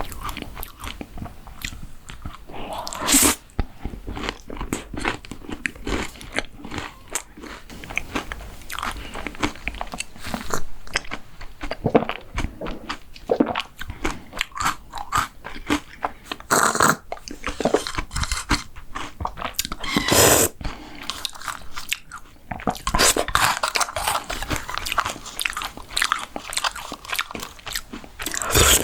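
Close-miked eating of mint-chocolate desserts: irregular crunchy chewing, with a few louder bites spread through.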